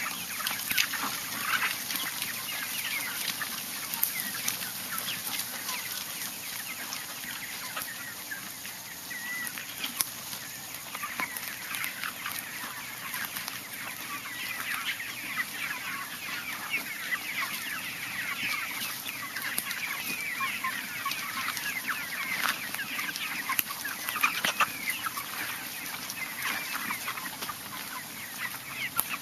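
A flock of free-range chickens clucking and chirping, many short calls overlapping without a break.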